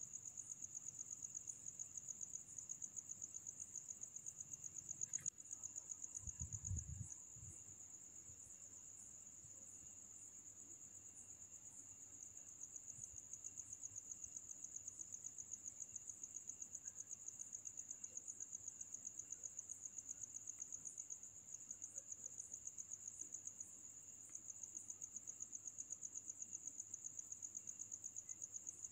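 Insects trilling steadily on one high pitch with a fast pulsing rhythm, with a brief low rumble about six seconds in.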